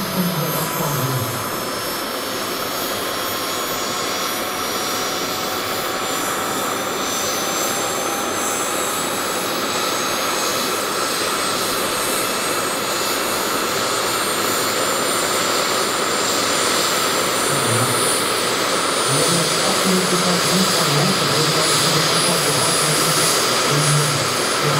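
Turbine engine and spinning main rotor of a large RC scale SA-315B Lama model helicopter, a steady jet whine over a rushing noise. The whine rises slowly in pitch and the sound grows louder as the turbine spools up ahead of lift-off.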